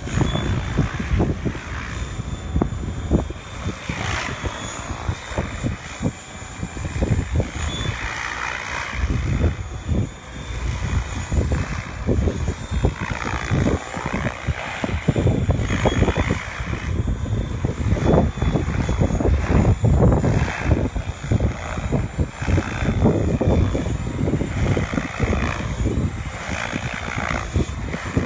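Radio-controlled helicopter flying aerobatics: its rotor blades whoosh in repeated surges that swell and fade as it manoeuvres and passes, with wind rumbling on the microphone.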